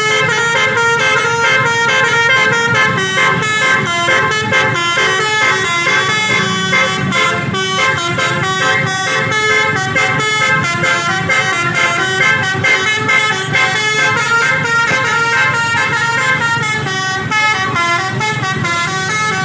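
Indonesian 'telolet' basuri multi-tone bus horn playing a melody: a quick, steady run of changing horn notes that repeats over and over.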